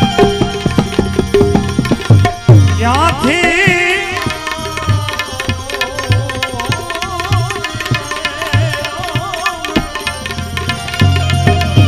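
Gujarati folk devotional song: a singer draws out one long, ornamented sung phrase with a wavering pitch over a steady tabla rhythm. The tabla comes forward again near the end as the voice drops out.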